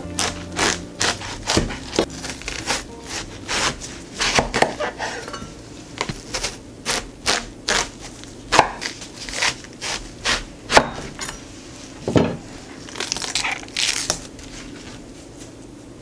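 Knife cutting watermelon on a cutting board: a run of irregular crisp chops and knocks, with a few longer swishing slices near the end.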